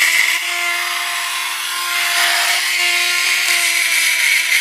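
Small electric chainsaw-chain grinder running with a steady whine, its grinding wheel against a chain cutter with a hiss. The grinder is worn out, and the owner says its bearings are rattling.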